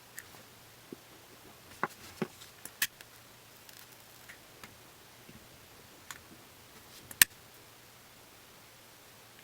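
A few short, sharp clicks and taps, like small objects being handled and set down, scattered over a quiet room. Three come around two to three seconds in, and the loudest is a single click about seven seconds in.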